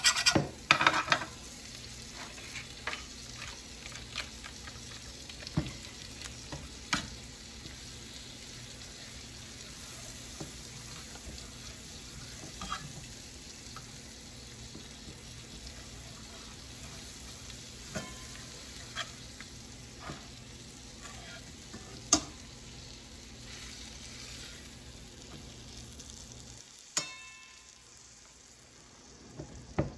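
Butter sizzling in a nonstick electric skillet, with scattered clicks and scrapes of a knife blade moving it around the pan. A quick run of scraping taps comes in the first second, and there are single louder taps later on.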